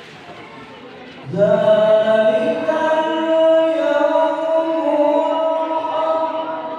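A male qari reciting the Quran in the melodic tilawah style through a PA system: after a quiet first second, he sets in and holds one long, ornamented phrase on a mostly steady pitch.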